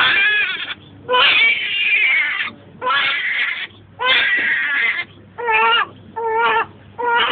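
Newborn baby boy crying just after his circumcision, in a string of loud wails: the first few long, the later ones short and coming about once a second.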